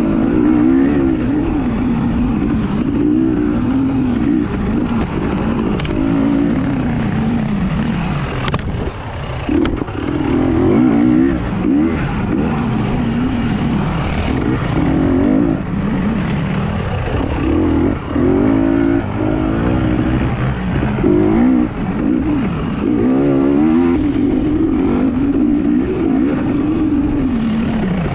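Off-road race motorcycle engine being ridden hard, its pitch rising and falling every second or two as the throttle opens and closes, with a single sharp knock about a third of the way in.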